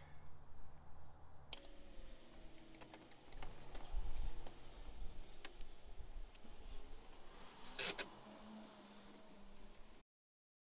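Scattered small clicks and light metallic rattles of fence-post hardware being handled, with one sharper click a little before the end.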